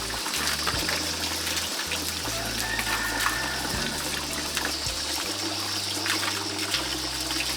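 Running water trickling and splashing steadily, with soft background music underneath.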